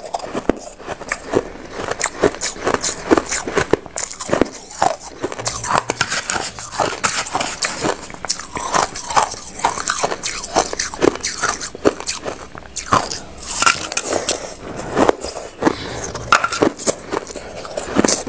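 Mouthfuls of crushed ice being bitten and chewed: many quick, irregular crunches, one after another.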